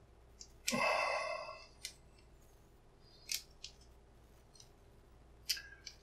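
Needle-nose pliers working a greasy brass padlock cylinder: about five sharp metallic clicks as the jaws grip and slip on the metal, with a louder rasping sound lasting about a second near the start.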